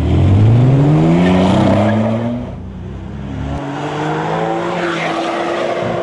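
Amphibious car's engine accelerating hard, its pitch climbing for about two seconds. It then dips and eases off, and climbs again more slowly.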